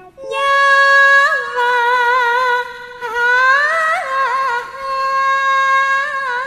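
A woman singing long, high held notes with vibrato and ornamental turns into a microphone, Javanese campursari style, in two long phrases, the second opening with a rising slide about three seconds in.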